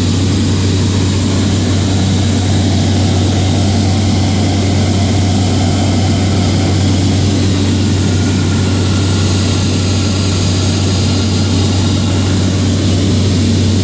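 Cabin drone of a propeller-driven light aircraft in cruise: the engine and propeller run steadily at a constant loud level, with a deep, even hum.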